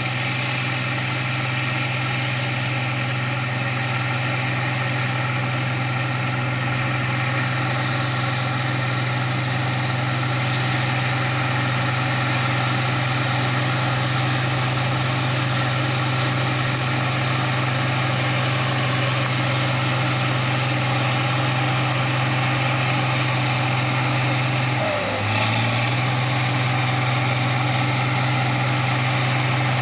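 Diesel engines of International Harvester 4366 and 4166 four-wheel-drive tractors running steadily under load while pulling chisel plows, a deep, even drone. It briefly wavers about five seconds before the end.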